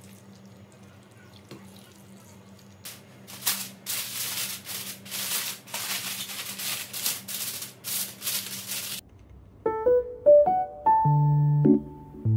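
Quiet room tone, then about six seconds of irregular scratchy rubbing strokes. About nine seconds in these cut off abruptly and background electric piano music begins.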